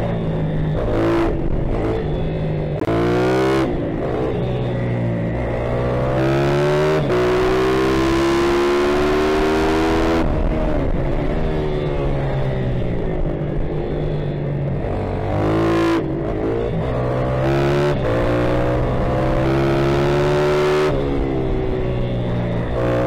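YCF pitbike's single-cylinder four-stroke engine under race throttle, revving up and falling back over and over as the rider accelerates out of corners and rolls off for the next, the pitch climbing and dropping every second or two.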